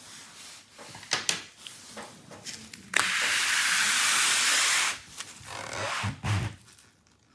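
An opened laptop being handled and turned around on a wooden desk. Light clicks and knocks from handling, then a steady scraping hiss lasting about two seconds as the chassis slides across the wood, followed by a few soft thumps as it is set down.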